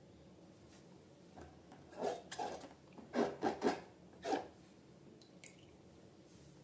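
Slime being squished and handled: a series of about six short, wet squelches between about two and four and a half seconds in.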